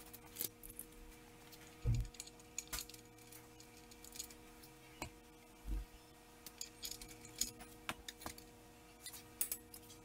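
Metal hand tools and hardware clinking and tapping irregularly while a transmission is fitted, with a dull thud about two seconds in and another near six seconds.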